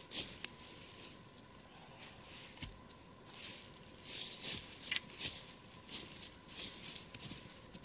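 Footsteps in boots crunching through dry fallen leaves at a walking pace, about two steps a second, more regular and louder from about four seconds in. A few sharp clicks near the start.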